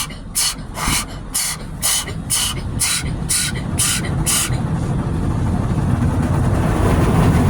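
Automatic car wash's high-pressure water jets sweeping over the car in a rhythmic swish about twice a second, heard from inside the car. About four and a half seconds in the swishing stops and a steady rumble of water and machinery takes over, growing louder.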